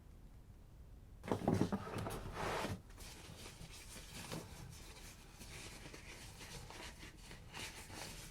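Camera packaging being handled: a loud rustle and scrape a little over a second in, lasting about a second and a half, then softer rustling with light taps and clicks.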